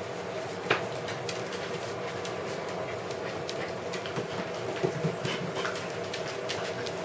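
Dogs' claws ticking irregularly on a tiled floor as a poodle and its puppy move about, one sharper tap about a second in, over a steady low hum.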